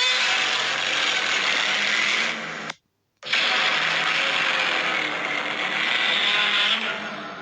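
Godzilla roar sound effect, played twice: two long, harsh, screeching roars of about three seconds each with a brief silence between them, the second trailing off near the end.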